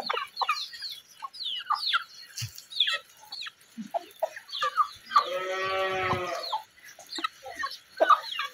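Chickens clucking and peeping as they feed, many short falling chirps one after another. About five seconds in, a larger farm animal gives one drawn-out call lasting about a second and a half.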